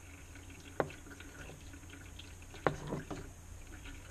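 Brake fluid trickling from a rear brake caliper's bleed nipple, through a clear bleed tube into a plastic catch bottle, during pressure bleeding. Two sharp clicks come about a second in and near three seconds.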